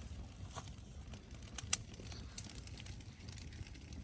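Small campfire of birch bark and thin twigs crackling, with scattered sharp pops at irregular intervals over a low background rumble.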